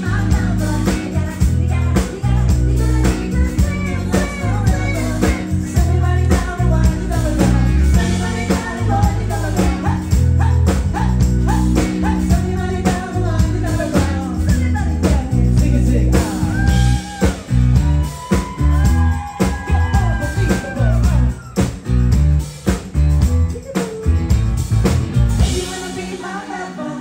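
Live band playing a song, a female vocalist singing into a microphone over drums and bass. The song winds down and ends near the end.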